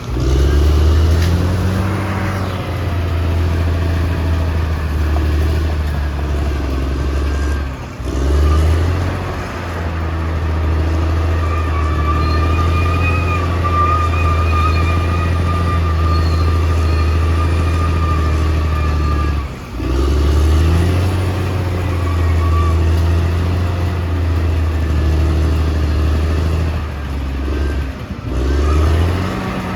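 Cat D6R XL bulldozer's diesel engine running steadily and loud, with a thin high whine over it. The sound drops out briefly and picks up again about three times.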